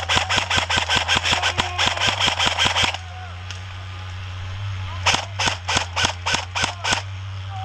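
Airsoft electric rifle firing on full auto in two rapid bursts of sharp clacks. The first burst lasts about three seconds, and a second, shorter burst starts about five seconds in.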